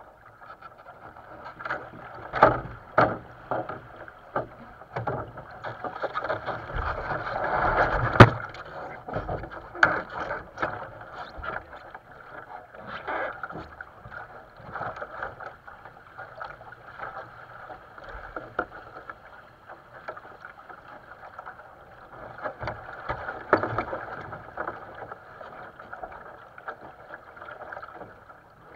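Water rushing and splashing along a sailing dinghy's hull as it moves under sail, with sharp knocks scattered through, the loudest about eight seconds in.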